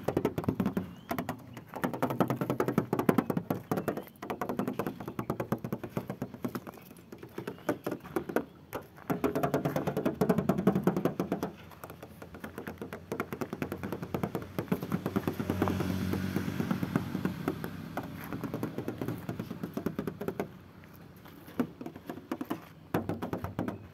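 A hand tapping and rubbing over a Toyota Kijang's painted steel body panels, making a long, uneven run of light taps and knocks.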